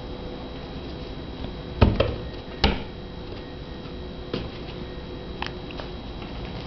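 A cat's paws thudding on the floor as it pounces after a laser dot: two loud thumps about two seconds in, then a few lighter taps, over a steady background hum.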